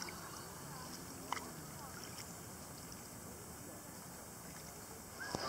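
Quiet shoreline ambience: a low, even hiss of calm water and air with faint distant voices, and one sharp click a little over a second in.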